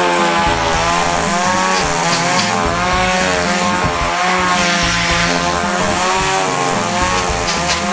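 Chainsaw engine running continuously without a break, its pitch wavering a little up and down.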